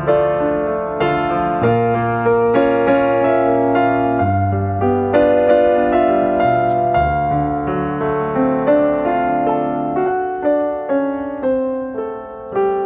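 Piano music: a steady run of struck notes and chords, each fading after it is played.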